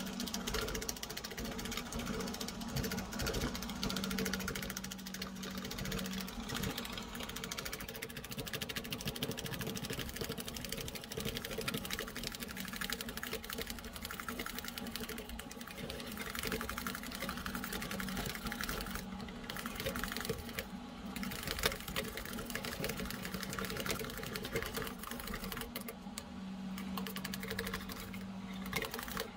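A mesh scum skimmer beaten rapidly against a stainless steel bowl, whipping egg whites into meringue: a fast, even rattle of strokes, played at double speed.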